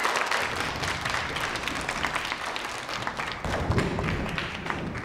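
A group of people applauding: dense clapping that holds steady, then thins out near the end. A low rumble sounds under it about three and a half seconds in.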